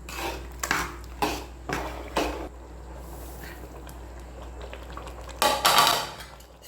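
A spoon stirring and scraping in a cooking pot as wheat rava is mixed into boiling chicken gravy. There are several quick strokes in the first two and a half seconds, then a louder, longer scrape near the end.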